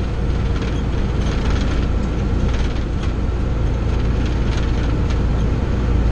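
Snow-plow truck's engine running steadily as it drives, heard from inside the cab: a constant low engine drone over road noise, with a few faint clicks.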